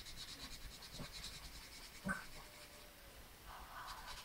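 Green felt-tip permanent marker scratching on paper in quick back-and-forth strokes as an area is coloured in, with one light knock about two seconds in.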